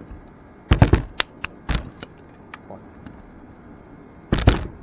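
Sharp clicks and clacks from an airsoft 1911 pistol being handled: a quick cluster about a second in, then a few single clicks, and another cluster near the end.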